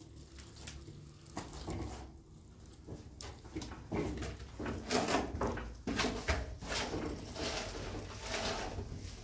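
Trowel scraping and knocking in a plastic basin of wet plaster, as it is scooped and worked. There are a few light knocks at first, then busy, irregular scraping from about four seconds in.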